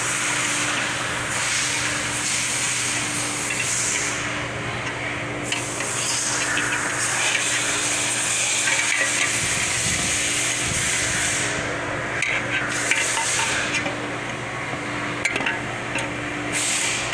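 Hand tools scraping and clicking on metal as a snap ring is worked out of its groove in a 4L60E transmission case, with the clutch spring held compressed. Underneath runs a steady hissing hum, and a few sharp clicks come near the end.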